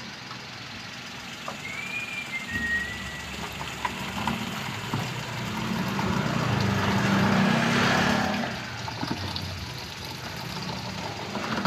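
Concentrated coolant pouring from a plastic jug into a large plastic bottle, the splashing loudest from about five to eight and a half seconds in, over a Suzuki Alto engine idling steadily.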